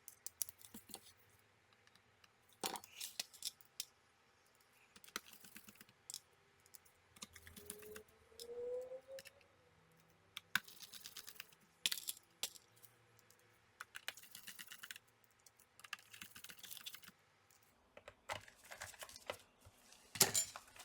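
Small screws being driven into a laptop's bottom cover with a hand screwdriver: light clicks and scrapes in short clusters, with a brief rising squeak about eight seconds in.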